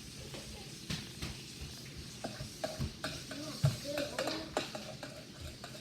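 Homemade glue slime being stirred and mixed in a bowl: a run of small, irregular wet clicks and scrapes.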